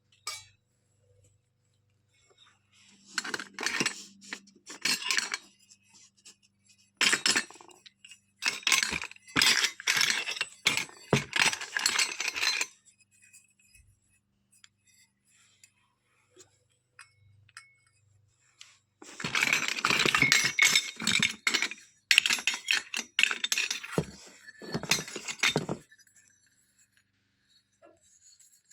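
Small toy kitchen pieces (miniature dishes, pots and utensils) being handled, clinking and clattering against each other in three bouts with quiet pauses between.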